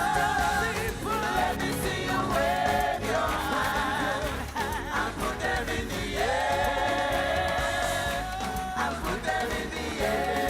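Gospel worship music: voices singing long held notes together over band accompaniment.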